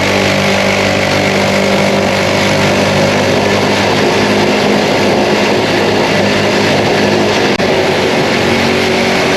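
Mini bike's small engine running at a steady speed.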